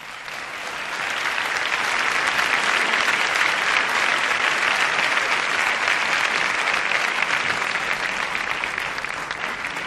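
Studio audience applauding: the clapping swells over the first second or so, holds steady, and eases a little near the end.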